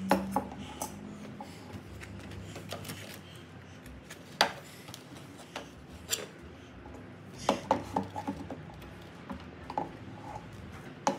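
Metal cutlery clinking and scraping against a jar of chocolate spread and a plate, with a handful of sharp clinks at irregular moments and quieter scraping between them.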